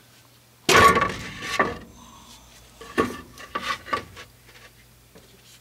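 Hammer blows on a rusted steel exhaust tailpipe joint under a 1966 Chevy Biscayne: several ringing metal clanks, the first, about a second in, the loudest. The blows are meant to knock the seized tailpipe off the muffler outlet sleeve.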